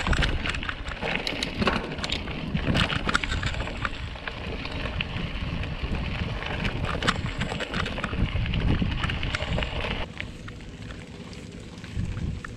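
Mountain bike riding over a stony dirt track: tyres crunching and crackling on gravel and loose stones, with wind noise on the microphone. It turns quieter about ten seconds in.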